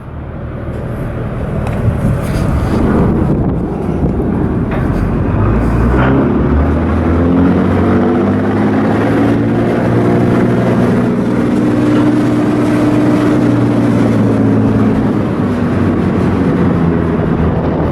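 An engine running, its pitch climbing over a few seconds, holding, then easing down again near the end, with rumbling wind on the microphone.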